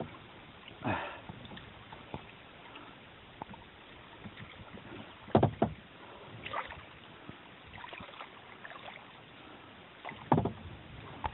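Kayak paddle blades dipping and splashing in calm river water, a few irregular strokes and drips over a steady faint hiss.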